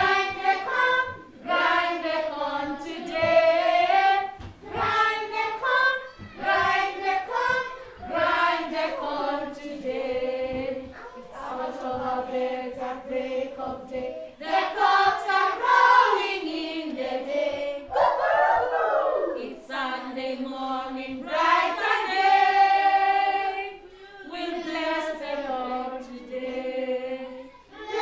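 A group of young children singing together with a woman's voice among them, in sung phrases with short breaks between lines.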